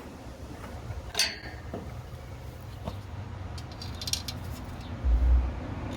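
Small metal clinks and clicks from handling headlight hardware: one sharp click with a brief ring about a second in, a cluster of light ticks midway, and a couple of dull low thumps near the end.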